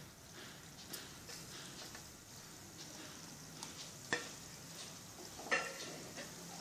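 Gulab jamun dough balls frying in hot oil in a nonstick pan: a faint, steady sizzle with scattered small pops. Two sharper clicks come about four and five and a half seconds in.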